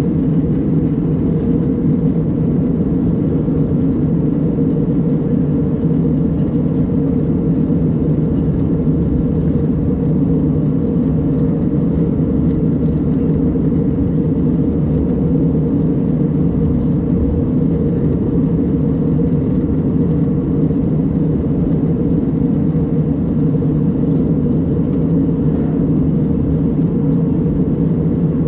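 Steady cabin noise of an Airbus A320 in flight, heard from a window seat beside the wing: an even low rumble of the jet engines and rushing air that does not change.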